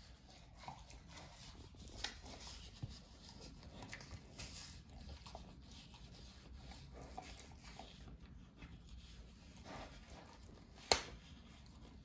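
Pit bull licking and nibbling at the cling film over a plastic tray of raw chicken: faint licking and rustling with small clicks, and one sharp click near the end.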